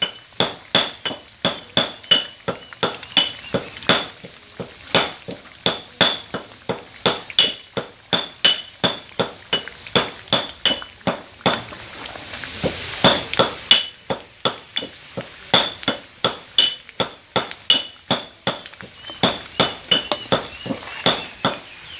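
A metal spatula clinking against a wok, about three strikes a second, as pork pieces are flipped in the frying oil, over the hiss of the frying. The hiss swells briefly about halfway through.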